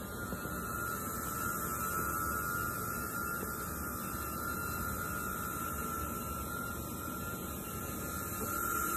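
DJI Neo mini drone hovering close by, its four ducted propellers giving a steady high-pitched whine over a rushing hiss, a little louder near the end.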